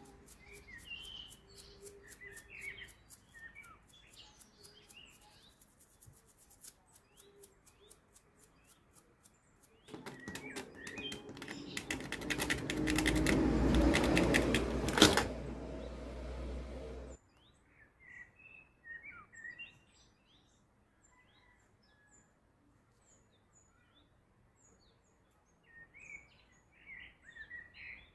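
Birds chirping in the background. In the first several seconds a toothbrush scrubs a small clock circuit board in quick scratchy clicks. In the middle comes a louder rasping noise over a low rumble that builds for a few seconds and cuts off suddenly.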